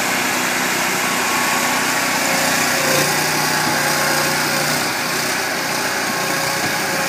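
Somero S-840 laser screed's engine running steadily as the machine drives across steel reinforcement mesh.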